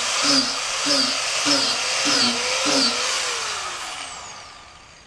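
Makita high-speed angle grinder fitted with a drill bit, boring plug holes into a tan oak log, its sound pulsing regularly about twice a second. About three seconds in it is switched off and its whine falls away as it spins down.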